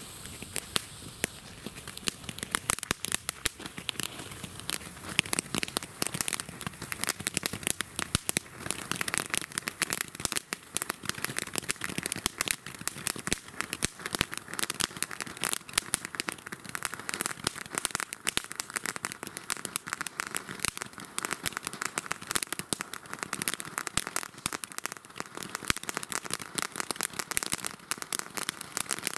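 Two Vulkanausbruch Gigant firework fountains burning side by side: a steady hiss of spraying sparks with dense crackling throughout, which grows busier after the first couple of seconds.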